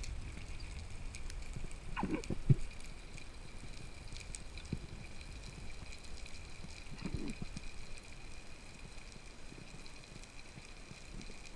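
Underwater ambience picked up by a camera in its housing while swimming over a seagrass bed: a steady low water rumble with a faint steady hiss and scattered faint clicks. Two brief water sounds stand out, about two and seven seconds in.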